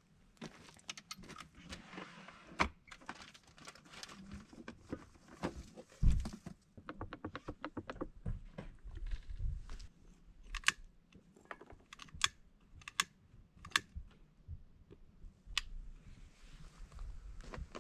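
Handling noise of charcoal briquettes and a small portable grill being set up, with a quick run of rattling clicks about seven seconds in. Then a hand lighter is clicked about five times, a second or so apart, to light the charcoal.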